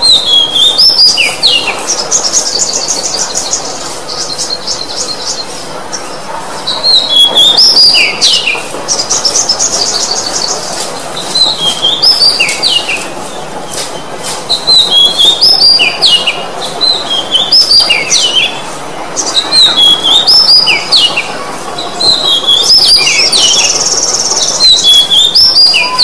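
Oriental magpie-robin singing loudly: repeated phrases of clear whistled notes that step down in pitch, broken now and then by buzzy rapid trills.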